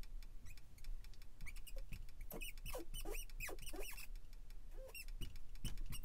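Marker squeaking on a glass lightboard as a word is written: a quick run of short, high squeaks, starting about a second and a half in.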